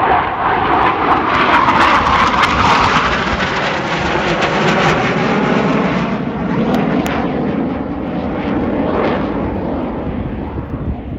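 Two Dassault Rafale F3R fighter jets passing overhead in formation, their twin M88 turbofans giving a loud jet noise. The noise is strongest in the first few seconds, then falls steadily in pitch and slowly fades as the pair flies away.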